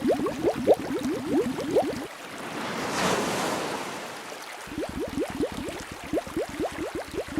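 Underwater bubbling: a quick run of short rising bloops, about five or six a second. About two seconds in, it gives way to a soft whooshing swell of water for two to three seconds, then the bubbling resumes.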